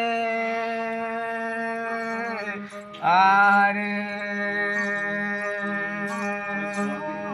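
Ravanhattha, the Rajasthani bowed fiddle with a coconut-shell body, played on its own. A long held note is followed about three seconds in by a note that slides upward, then a melody over a drone that pulses with the bow strokes.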